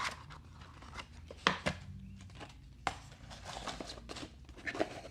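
Unboxing handling: the phone's box and its packed contents, including the charger parts, being moved about, with three sharp knocks or clicks spread out and soft rustling between them.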